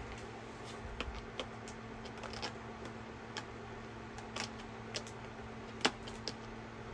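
Acrylic paint tubes being handled in their box tray: a string of light clicks and taps, with one sharper click about six seconds in, over a steady low hum.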